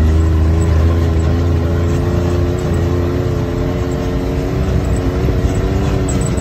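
Side-by-side UTV engine running at a steady speed as it drives along a dirt trail: an even drone over a deep low hum.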